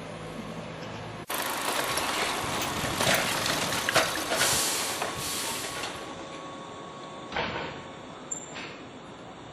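Keihan electric train passing over the level crossing: the rumble and rattle of steel wheels on the rail start suddenly just over a second in, are loudest around three to five seconds in, then die away, with two sharp clacks near the end.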